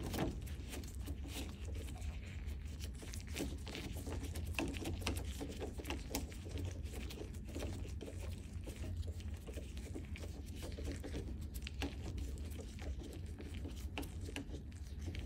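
Screwdriver turning a doorknob's long mounting bolt into the other half of the knob: irregular small clicks and scrapes of metal and handling, over a steady low hum.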